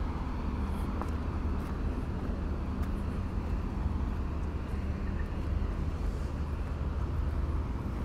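Steady low engine drone under an even background rumble of outdoor noise.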